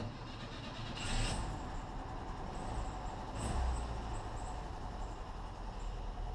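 A classic car's engine starting about a second in, then running with a steady low rumble, with a second loud burst from it about three and a half seconds in.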